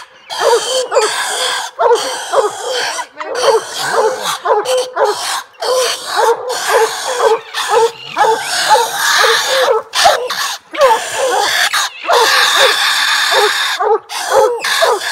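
Coon hunting hounds barking treed at the foot of a tree, a fast run of loud short barks, about three or four a second, from several dogs. The steady treed bark is the sign that the dogs have a raccoon up the tree.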